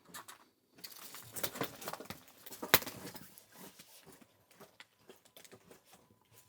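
Footsteps crunching over debris on the floor of a derelict wooden cabin, a dense run of small crackles with one sharp crack nearly three seconds in, then fainter scattered ticks.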